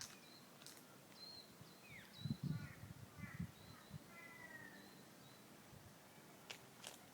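Small birds calling in the background, with short high whistles and several brief chirping, downward-sliding calls. A cluster of low thumps about two to three seconds in, and two sharp clicks near the end.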